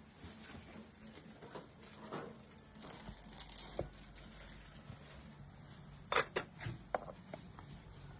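Scattered light clicks and knocks, with a quick cluster of several about six to seven seconds in, over a faint steady low hum.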